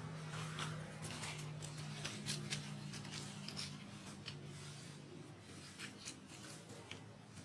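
Dry leaf litter rustling and crackling in many short irregular scratches as macaques shift about and handle a baby monkey on the ground. A faint low hum sits underneath for the first half or so.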